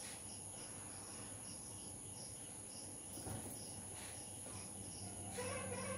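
Crickets chirping steadily, a high chirp repeating about three times a second over a faint hiss. Background music comes in near the end.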